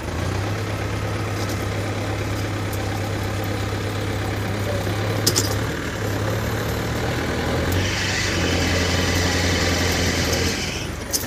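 Tractor diesel engine running steadily. It runs harder and louder from about eight seconds in until shortly before the end, while pulling an overturned tractor out of a ditch.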